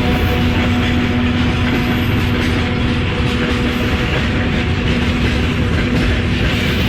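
A freight train behind a 2TE25KM diesel locomotive rolling past at close range, its wheels clacking over the rail joints. A steady droning tone runs under the noise.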